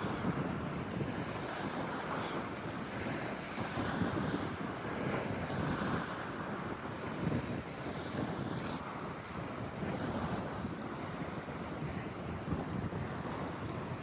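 Sea waves washing in steadily, with wind blowing across the microphone.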